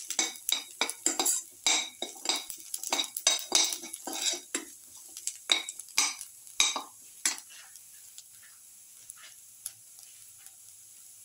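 A perforated metal spatula scraping and clinking against a metal wok (kadai), stirring sliced onions and garlic frying in oil, about two strokes a second. The strokes stop about seven seconds in, leaving a faint sizzle.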